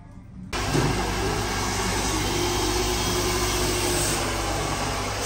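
Handheld hair dryer blowing steadily on a customer's hair, a loud, even rush of air with a faint steady whine. It cuts in suddenly about half a second in, after faint background music.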